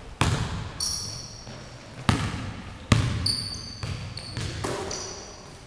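A basketball striking hard three times, echoing in a large gym, with the last the loudest. Sneakers squeak briefly on the hardwood floor in between.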